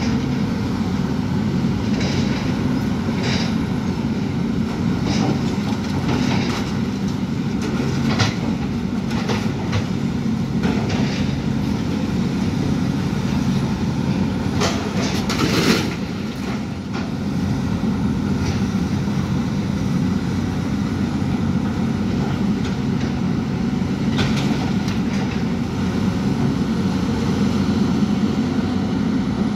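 Demolition excavator working: the diesel engine drones steadily under load, while irregular clanks and crashes come from the attachment breaking and dropping building debris, the loudest crash about halfway through.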